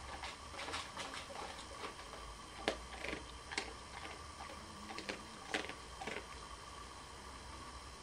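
Dog with its head down at the floor making irregular wet clicks and smacks with its mouth, a few a second, chewing or licking; they die away about six seconds in.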